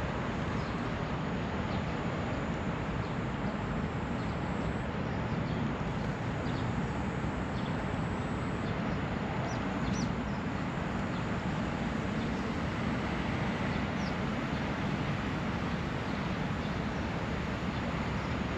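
Steady outdoor background rumble with a few short, high bird chirps now and then.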